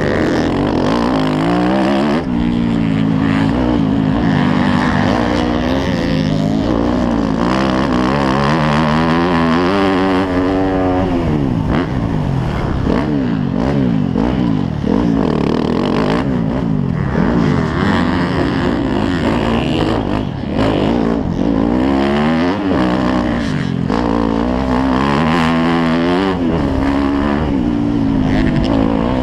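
A 250cc dirt bike's engine being ridden hard, its revs climbing and falling again and again as the throttle opens and closes.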